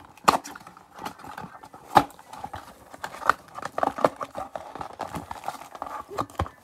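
Cardboard hanger box of 2019 Topps Update baseball cards being pried and torn open by hand. Scratchy rustling and scraping is broken by irregular taps and snaps; the two sharpest snaps come just after the start and about two seconds in.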